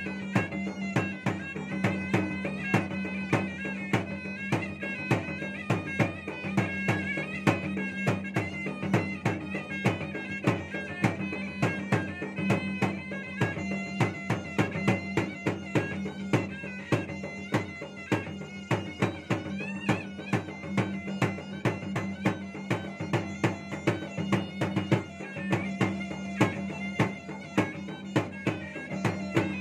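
Makassarese gendang ensemble playing: two double-headed barrel drums beaten by hand in a fast, driving rhythm with regular louder accents, under a wind pipe with a reedy, bagpipe-like tone that plays a wavering melody over a steady drone.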